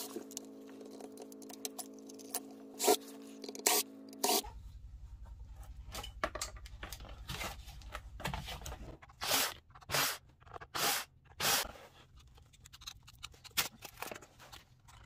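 Handling noise of an old hard drive being taken apart: scrapes, clicks and knocks of circuit boards and the metal casing being lifted and moved, with a run of louder scrapes about nine to twelve seconds in.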